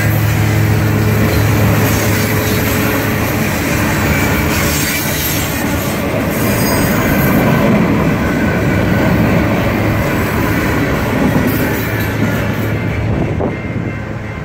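Freight cars of a CSX manifest train rolling past at a grade crossing, a steady rumble and clatter of steel wheels on the rails. The noise eases off near the end as the last cars clear the crossing.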